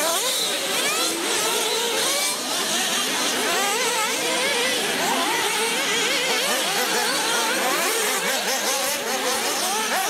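Several radio-controlled off-road buggies racing, their small high-revving engines whining and rising and falling in pitch as they accelerate and slow over the jumps.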